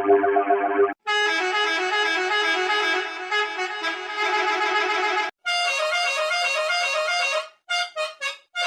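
A vehicle horn sound effect edited into musical variations: its tone steps up and down in pitch like a tune. The versions change abruptly about a second in and again after about five seconds, and near the end the horn comes in short chopped blasts.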